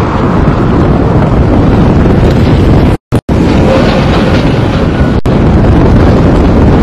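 Loud wind buffeting the camcorder microphone, a steady low rumble that drowns out everything else. The sound cuts out twice, very briefly, about three seconds in.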